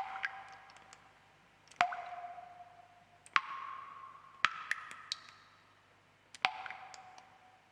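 Water drops falling one at a time into water, each landing with a sharp plink and a short ringing tone that fades. Five drops at uneven intervals, each at a slightly different pitch.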